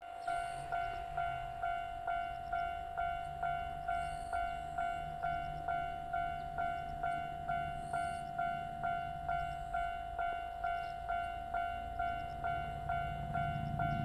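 Japanese railway level-crossing alarm ringing its electronic bell tone about twice a second. A low rumble builds near the end as a train approaches.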